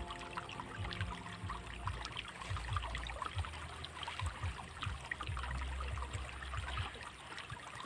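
Water trickling along a small rice-field irrigation ditch, a steady crackly patter. Beneath it runs a low rumble with occasional thumps that drops away about seven seconds in.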